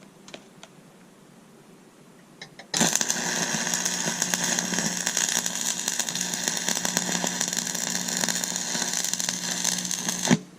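Buzz-box stick welder laying a tack weld: the arc strikes about a quarter of the way in and runs for some seven seconds as a loud, steady crackle over a hum, then cuts off abruptly just before the end. A few faint taps come before it.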